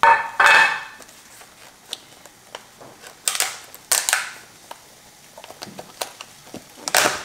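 Thin clear plastic clamshell container crackling as its snap lid is pried and peeled open by hand, in a few short bursts: at the start, twice about three to four seconds in, and once near the end.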